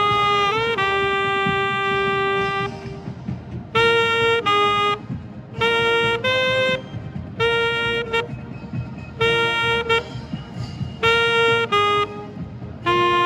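Marching band playing, with an alto saxophone close to the microphone. One long held note comes first, then short punchy phrases of a few notes each, repeated with brief gaps about every two seconds.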